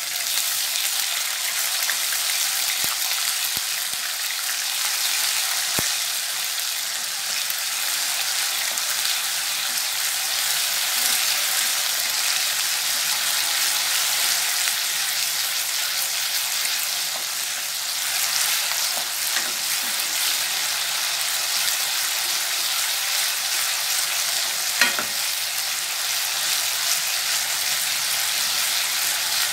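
Ginger-garlic paste sizzling in hot ghee in a nonstick kadai while a wooden spatula stirs it: a steady frying hiss, with one sharp tap near the end.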